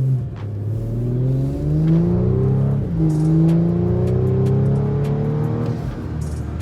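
Audi S4's 3.0-litre turbocharged V6 accelerating hard, breathing through a cold air intake. The engine note rises, drops at an upshift about three seconds in, climbs again, then eases off near the end.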